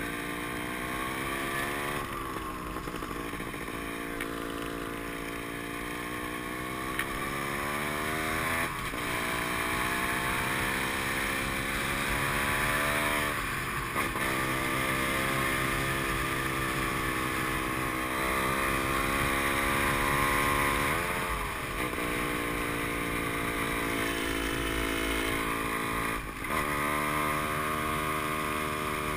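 Gas Gas dirt bike engine under way, heard from the bike itself. Its pitch climbs steadily and then drops abruptly several times, as with gear changes and roll-offs of the throttle.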